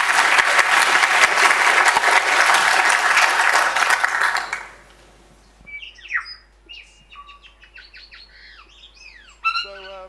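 Audience applauding, dying away after about four and a half seconds. Then a recording of New Zealand native forest birdsong plays: scattered chirps and sweeping whistled calls.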